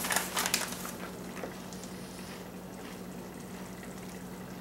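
Crisp crunching and crackling of Fritos corn chips in the first half second or so. After that, a steady low background of a pot of chili simmering, with a faint steady hum and a couple of faint clicks.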